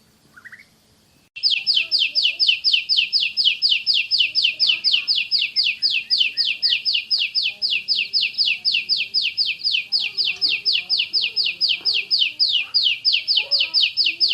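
Oriental magpie-robin (kacer) singing its 'tembakan' (shooting) song: a fast, tightly spaced series of identical sharp, high, downward-sweeping notes, about five a second, starting a little over a second in.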